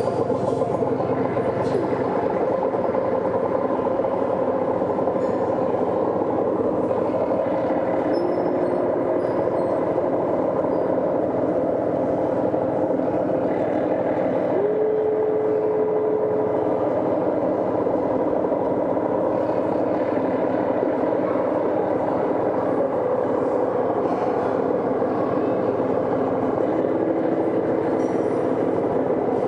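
Dense, steady droning noise texture of an experimental ambient piece, rumbling and grinding like machinery. A few short held tones rise out of it: one briefly after about eight seconds, one that glides up and holds about halfway through, and another near the end.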